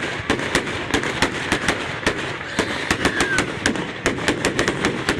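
Fireworks going off in a rapid, irregular string of sharp bangs and cracks, several a second.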